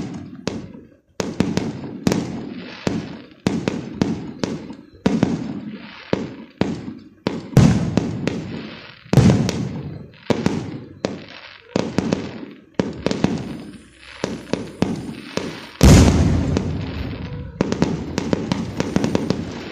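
Fireworks going off in quick succession: a steady run of sharp bangs and crackles, each trailing off in an echo. Heavier booms come about seven and nine seconds in, and the loudest near the end.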